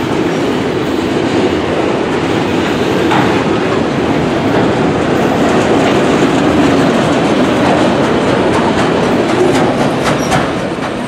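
Empty autorack freight cars rolling past: a steady rumble of steel wheels on rail, with occasional clicks that come more often near the end.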